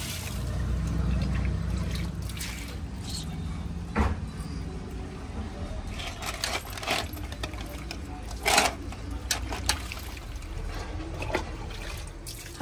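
Hands washing pieces of skinned fish in water in a steel basin: water sloshing and trickling, with scattered short knocks and clicks, the clearest about four and eight and a half seconds in. A low rumble runs through the first few seconds.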